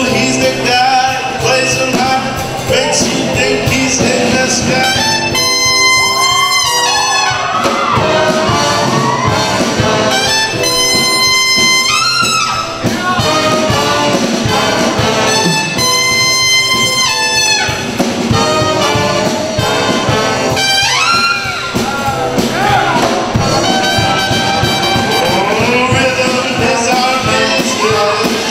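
High school jazz band playing, with a trumpet solo over the saxophone and trombone sections. The trumpet holds three long high notes spread through the passage.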